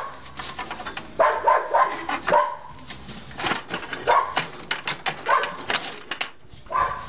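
A dog barking repeatedly in short bouts, with a few sharp knocks between the barks.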